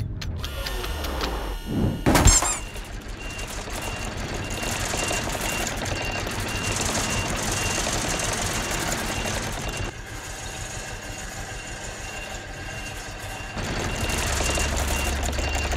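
Steady mechanical background noise with a high electronic beep repeating evenly, like a reversing alarm, after two loud thuds in the first couple of seconds.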